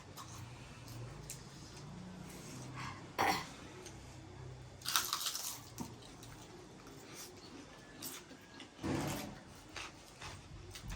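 Eating sounds: quiet chewing of noodles, with a few short, louder mouth or dish noises about three, five and nine seconds in.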